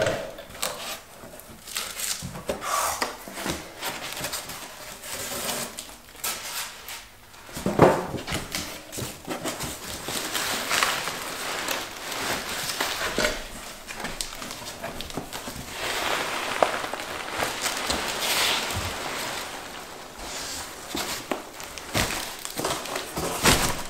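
Packing peanuts rustling and shifting as hands dig through a cardboard box full of them, with cardboard scraping and crinkling, and a sharp knock about eight seconds in.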